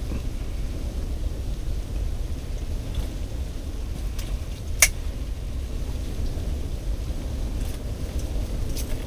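Steady low rumble with a single sharp click a little under five seconds in.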